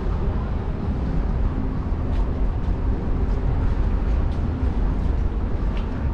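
Steady low rumble of wind buffeting the microphone of a GoPro on a moving bicycle, with a few faint clicks.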